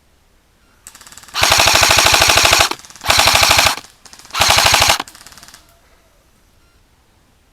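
Airsoft electric rifle firing on full auto in three bursts, the first the longest, a fast even rattle of shots. Quieter rapid clicking comes just before the first burst and just after the last.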